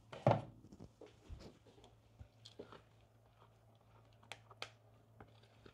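Faint, scattered scrapes and light taps of a spatula stirring thick cold-process soap batter, at thick trace, in a plastic jug, with one louder soft knock near the start.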